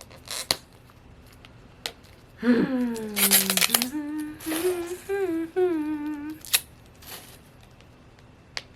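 A woman's wordless voice, first a falling groan of effort and then a wavering hum, with a few sharp plastic clicks and crackles from a Mini Brands capsule ball being pried and peeled open.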